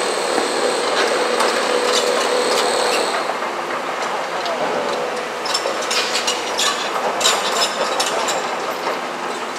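Komatsu PC210LC crawler excavator running at work, with a steady high whine over the engine noise for the first three seconds, then a run of clanks and rattles in the second half.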